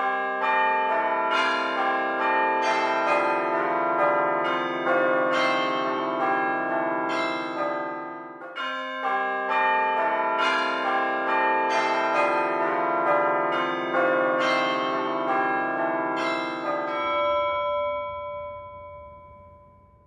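Church bells ringing a fast sequence of struck notes in two long runs. Near the end the ringing stops and the last notes hang on and fade away.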